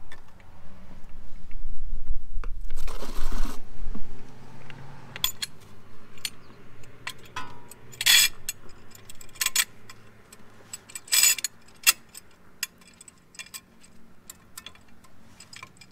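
A low rumble with a brief rush of noise in the first few seconds. Then a run of sharp metal clicks and clinks as a C-clamp is handled and set over a front brake caliper, with two louder clanks about eight and eleven seconds in.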